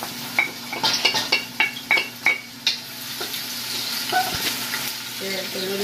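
Sliced onions going into hot cooking oil in a pot and sizzling, with a quick run of sharp taps and scrapes as a wooden spatula pushes them off a plate.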